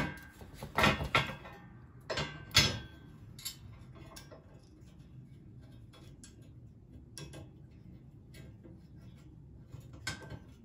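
Several sharp metallic clunks as a motor is knocked into place in a steel scooter frame on a metal workbench, followed by a series of small, light ticks as a bolt on the motor mount is turned with a hex key.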